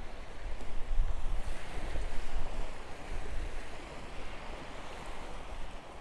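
Wind buffeting the microphone: a rushing noise with gusty low rumbles that ease off a little after about three and a half seconds.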